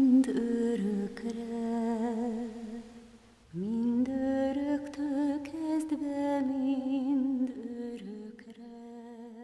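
A woman's voice humming wordless closing notes, held long with vibrato. It breaks off about three seconds in, then swells into a last held note that fades away near the end.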